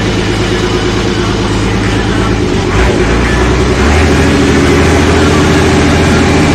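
Massey Ferguson 399 tractor's diesel engine running steadily. Its note rises about two and a half seconds in and steps up again about four seconds in.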